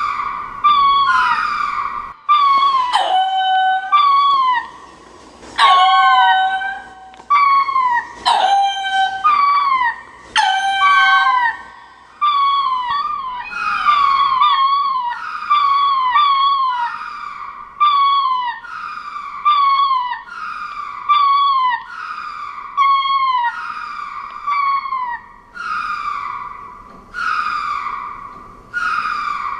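Godinotia creature calls: a long series of short, shrill, wavering calls, each falling in pitch, at roughly one a second. From about two to twelve seconds in they are louder and bend lower.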